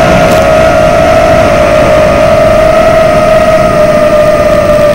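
FPV quadcopter's brushless motors and propellers whining at a steady, high pitch that dips slightly at the start, with a rush of air, heard from the drone's own onboard camera.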